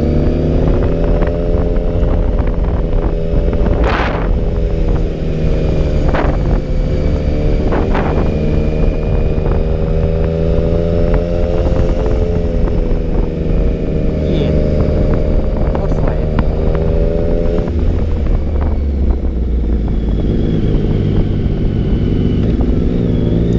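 Motorcycle engine running steadily under way, with a low wind rumble; the engine note wavers slightly and changes about eighteen seconds in. A few sharp knocks are heard along the way.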